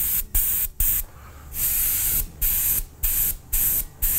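Airbrush spraying acrylic paint in short hissy spurts, about eight of them, with one longer spurt about one and a half seconds in.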